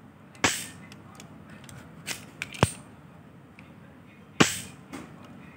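Spring-loaded plunger of a plastic match gun snapping shut as it is cocked and released, several times. The two strongest snaps come about half a second in and near the end, with a quicker pair of sharper clicks in between.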